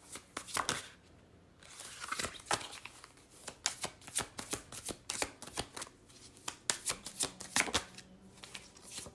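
A tarot deck being shuffled by hand: quick runs of card flicks and slaps in several bouts, with short pauses between them.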